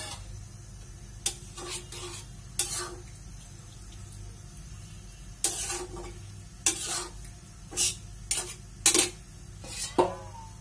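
A metal spatula scraping and knocking against a metal kadai as a leafy vegetable curry is stirred. There are about nine separate strokes, spaced irregularly.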